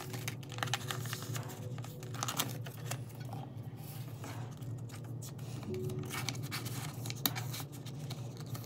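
Plastic binder sleeves and photocards rustling and crinkling as they are handled, in short irregular crackles over soft background music.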